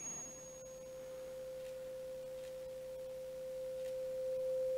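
A 512 Hz tuning fork (a C) ringing one faint, steady pure tone over a resonance tube standing in water. The tone swells louder about three and a half seconds in as the tube's air column is brought toward the length that resonates with the fork.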